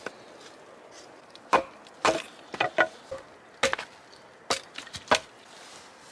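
Axe chopping and splitting dry firewood into small pieces: a string of sharp, irregular knocks of the blade into wood, some in quick pairs.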